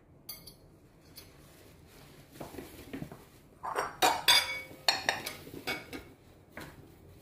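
Plates and bowls clinking against each other as they are carried: a few faint knocks, then a run of sharp, ringing clinks, loudest a little past the middle.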